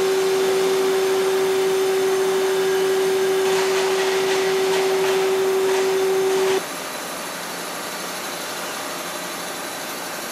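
Hwacheon T-REX 210 CNC lathe hard-turning a hardened (HRC62) steel shaft: a steady whine over the machine's running noise. The whine cuts off suddenly about six and a half seconds in, leaving a quieter steady machine noise.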